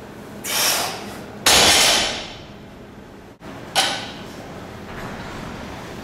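A heavily loaded barbell with bumper plates dropped from deadlift lockout onto a rubber gym floor: a loud crash about a second and a half in that fades over nearly a second, after a shorter noise just before it. A single sharp knock follows near four seconds.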